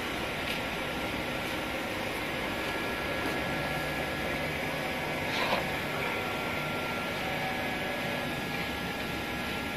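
Steady background hum and hiss with a few faint steady tones, broken once about five and a half seconds in by a brief soft knock or rustle.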